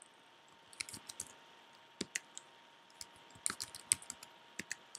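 Typing on a computer keyboard: short, irregular runs of quiet keystroke clicks, starting about a second in.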